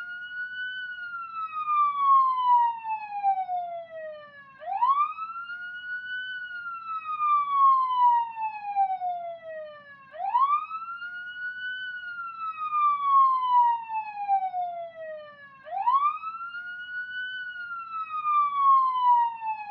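Police car siren in wail mode, heard from inside the car: each cycle sweeps up quickly, then glides slowly down over about five seconds before rising again, three rises in all, over a faint low rumble.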